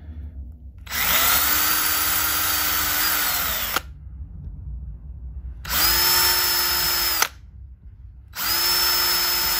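Handheld electric drill with a small bit boring pilot holes in a maple guitar headstock for the truss rod cover screws. It runs in three bursts, a longer one of about three seconds and then two short ones. Each time the motor whine rises to a steady pitch and sags as it is let off.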